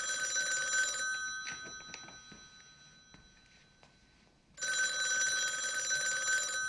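Telephone ringing in two rings: the first ends about a second in and fades away, and the second starts after a gap of about three and a half seconds.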